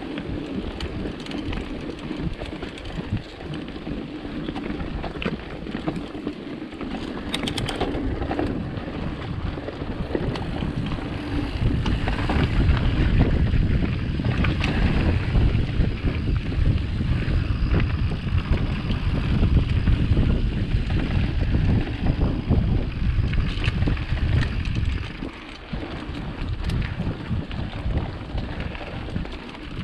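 Mountain bike riding down a dirt trail: wind buffeting the microphone and tyres rumbling over the ground, with scattered rattles and clicks from the bike. The rumble grows louder about twelve seconds in and dips briefly near the end.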